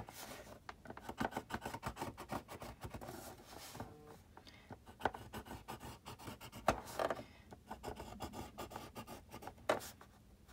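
Paper being scored on a grooved plastic scoring board: a run of light scratching and rubbing strokes as the tool is drawn along the grooves, with a couple of sharper clicks about two-thirds of the way in and near the end.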